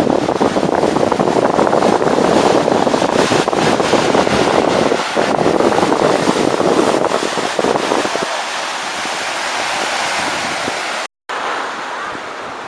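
Wind buffeting the microphone over a steady rush of surf. The low rumble drops away about eight seconds in, and the sound cuts out for a moment near the end.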